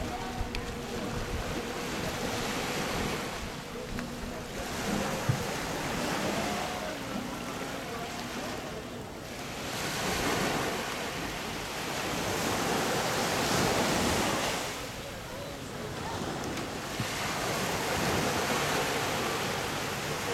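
Sea waves breaking and washing up the beach, the surf swelling and fading every few seconds, with wind on the microphone.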